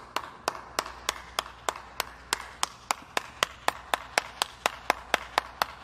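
One person clapping steadily, about three claps a second at first, the pace quickening slightly toward four a second by the end.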